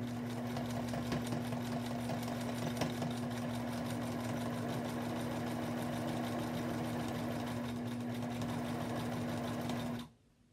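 Electric domestic sewing machine stitching a quilt seam at a steady speed: motor hum with a rapid ticking of the needle, stopping suddenly near the end.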